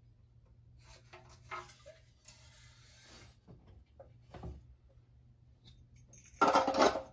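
Light clicks and scrapes of a small plastic engine gas tank and its cap being handled, with a louder burst of handling noise near the end.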